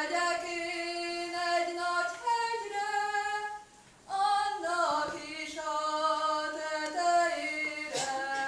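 A young female voice singing a Hungarian folk song solo and unaccompanied, in long held notes: two phrases with a short pause for breath about four seconds in.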